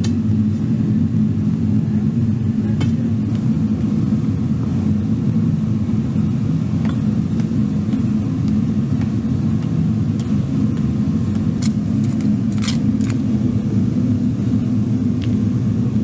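A steady low rumble throughout, with a few scattered sharp knocks from a hammer and iron bar chipping at the old lining of a metal-melting furnace, several of them coming close together about three quarters of the way through.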